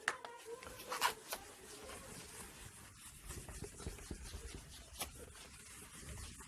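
Faint rubbing of a whiteboard being wiped clean, with a few light knocks about a second in and again near five seconds.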